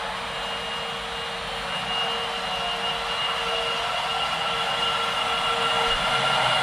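Electric subway train pulling away and accelerating. Its motor whine slowly rises in pitch and grows louder.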